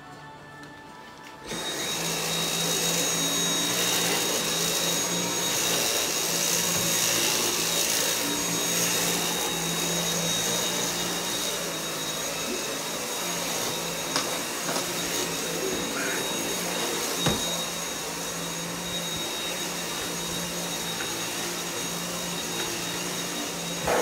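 Dyson cordless stick vacuum switched on about a second and a half in, then running steadily: a rush of air with a high steady whine over a low hum.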